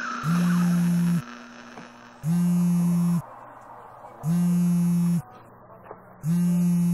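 Mobile phone vibrating on a tabletop for an incoming call: four even buzzes, each about a second long with a second's pause between.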